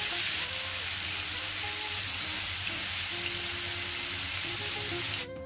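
Chicken and vegetable skewers frying in olive oil in a hot pan over medium heat, a steady sizzle with the raw chicken freshly laid in. The sizzle cuts off abruptly just before the end, leaving soft background music.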